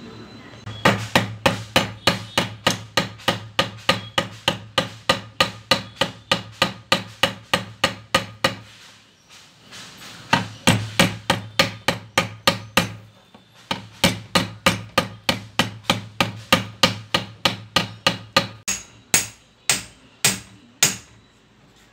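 A steel hammer striking a gas mono shock absorber clamped in a bench vise, metal on metal, in quick runs of about three blows a second with two short pauses. Near the end the blows come slower and sharper.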